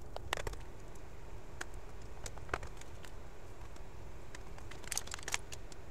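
Scattered light clicks and taps from hands pressing the aluminium bottom cover of a Dell XPS 15 laptop into place, with a quick cluster of clicks near the end, over a steady low hum.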